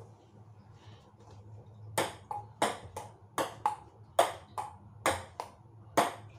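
A table tennis rally: the ball clicking sharply off the paddles and bouncing on the table, about two to three hits a second, starting about two seconds in.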